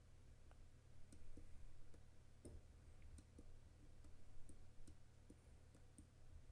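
Faint, irregular clicks of a computer mouse, about two a second, over a low steady hum.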